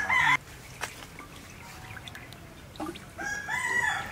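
Domestic chickens clucking: a short, loud call at the start, then a longer run of calls about three seconds in.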